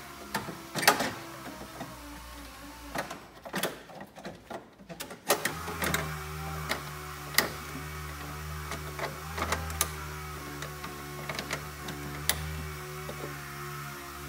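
Plastic clicks and clatter of wiring-harness connectors and an engine computer being handled in a Honda Odyssey's engine bay. About five seconds in, a steady low machine hum starts and runs on under the clicks.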